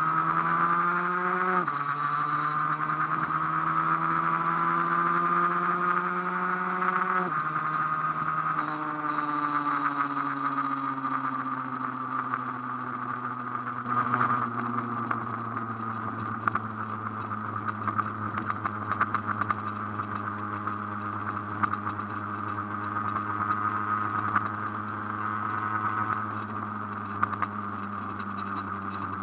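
Aprilia AF1 two-stroke motorcycle engine under way. It revs up, drops in pitch with an upshift about one and a half seconds in, climbs again, and shifts again about seven seconds in. It then holds a steady, slowly falling note as the bike cruises.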